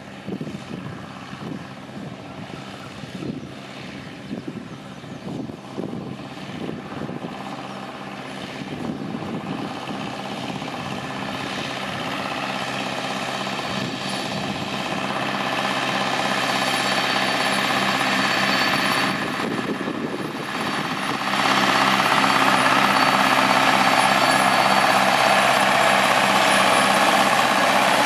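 Allis-Chalmers ED40 tractor's four-cylinder diesel engine running steadily as it pulls a Lely Cock Pheasant hay turner through cut hay, growing louder as it comes closer, with a sudden step up in loudness about three quarters of the way through.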